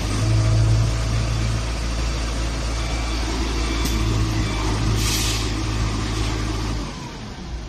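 JCB 4CX backhoe loader's diesel engine running steadily with a low hum, and a short hiss about five seconds in. The engine sound drops sharply near the end.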